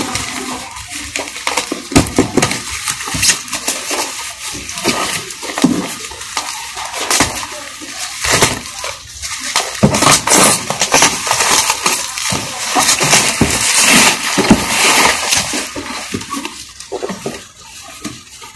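Clear plastic wrap crinkling and tearing as it is pulled off a cardboard box, with scrapes and taps of the cardboard being handled; loudest in the middle.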